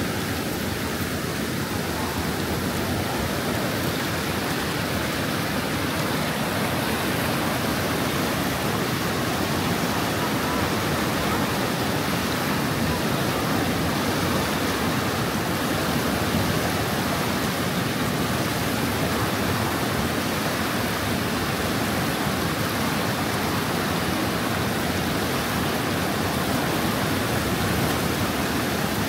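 Floodwater pouring over a construction embankment: a loud, steady, even rush of water.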